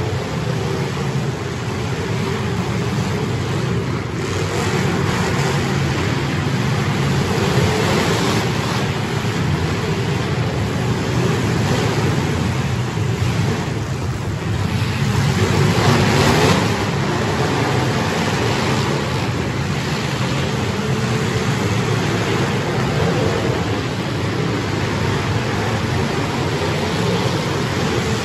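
Many full-size demolition derby cars' engines running and revving hard at once, a dense, continuous engine noise, with a louder surge about sixteen seconds in.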